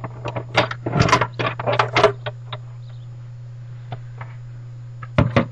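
Plastic clatter and scraping as a Big Shot die-cutting machine's multipurpose platform and embossing-folder sandwich are handled and taken out after embossing. A quick run of knocks comes in the first two seconds, a couple of faint ticks follow, and two sharp clicks come near the end, over a steady low hum.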